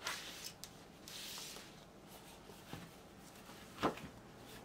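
Paper sleeves and printed insert of a vinyl LP being handled: light rustling with a soft sliding hiss about a second in, and one sharp click near the end.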